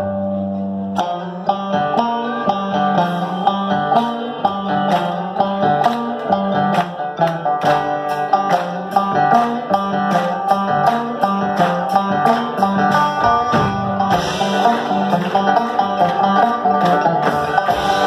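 Live bluegrass-style string band playing an instrumental passage of a rock cover on acoustic guitar and upright double bass, with a steady beat. The sound grows brighter and fuller about fourteen seconds in.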